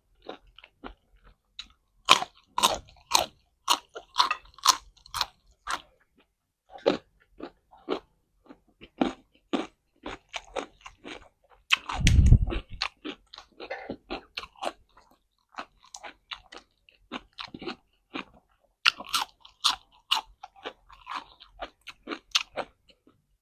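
A person biting and chewing crisp food close to the microphone, with a rapid, irregular run of crunches. A brief louder low-pitched sound comes about halfway through.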